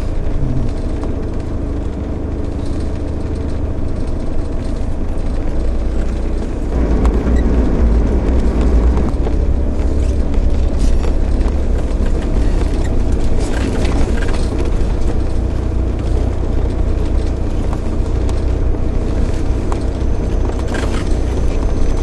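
Four-wheel drive's engine and drivetrain running from inside the cab while crawling along a rutted mud track, a steady low rumble that grows louder about seven seconds in. Scattered knocks from the vehicle jolting over the ruts.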